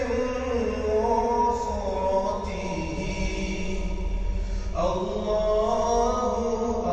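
Background vocal music: a chant-like voice holding long notes that slide slowly between pitches, with a change of phrase about five seconds in.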